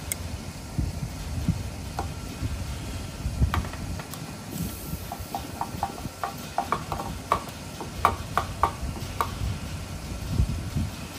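Hands working a Honda CB450 carburetor: a string of small, sharp clicks and taps in the second half, over a low rumble.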